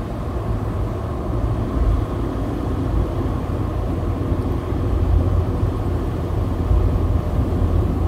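Car driving along an asphalt road, heard from inside the cabin: a steady low rumble of engine and tyre noise.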